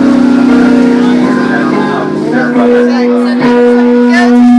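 Loud amplified music from a band's sound check through a venue PA, with long held notes that change pitch a few times, and voices underneath.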